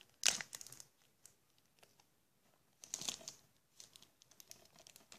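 Clear plastic shrink-wrap crinkling as it is worked off a disc case, in short rustling bursts: one just after the start, another about three seconds in, and smaller crackles near the end.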